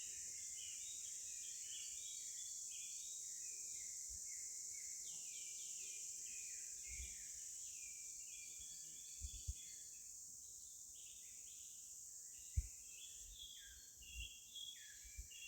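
Faint natural ambience: a steady high-pitched insect drone with many short, falling bird chirps over it, and a few brief low knocks.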